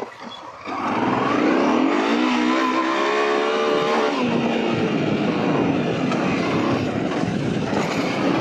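Honda XL650V Transalp's V-twin engine pulling away and accelerating, the revs climbing and then falling back about four seconds in, after which it runs steadily under a constant rush of wind noise.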